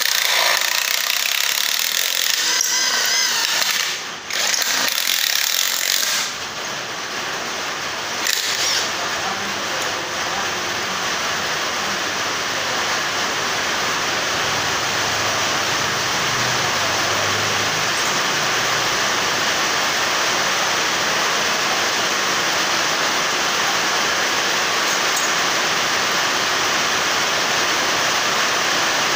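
JLD cordless impact wrench with a step drill bit drilling into aluminium bar: the motor runs with a wavering whine in two spells, broken by a short stop about four seconds in and ending about six seconds in. After that a steady rushing noise carries on to the end.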